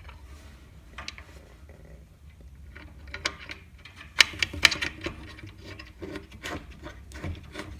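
Scattered light clicks and taps of small metal fittings being handled and fitted by hand: a screw, washers, a bracket and a nut going onto a glass panel. The clicks come thicker in the second half.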